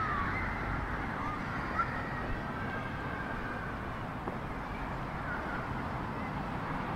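Steady outdoor street ambience with a few faint short calls.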